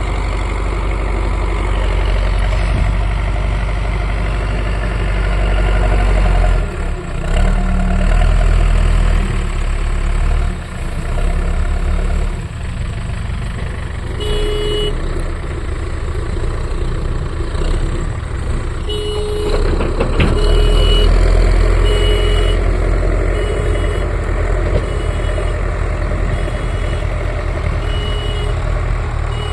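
Heavy engine of a JCB earth-moving machine running under work load, its rumble rising and easing as it works. About halfway through, a reversing alarm starts beeping steadily, about one beep every second and a half.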